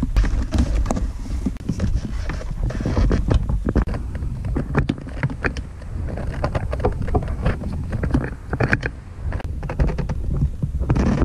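Scattered clicks and knocks of plastic hose fittings and clamps being handled as an inlet strainer is fitted to a boat's freshwater pump, over a steady low rumble.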